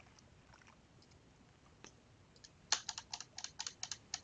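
Computer keyboard keys clicking. A few faint clicks at first, then a rapid run of sharp key clicks, about six a second, starting about two-thirds of the way in.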